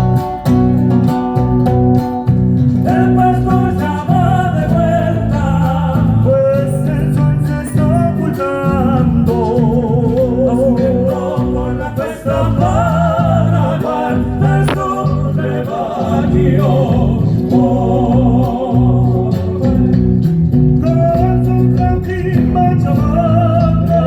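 A band playing a song at its sound check: guitar and a strong bass rhythm, with singing that comes in about three seconds in.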